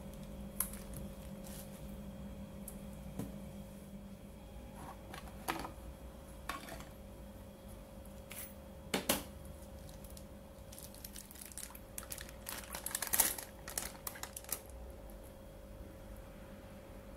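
Plastic bag rustling and crinkling as a bagged block of tofu is opened and pulled off in a glass bowl, with scattered light clicks and knocks from handling. The busiest, loudest crinkling comes about three-quarters of the way through.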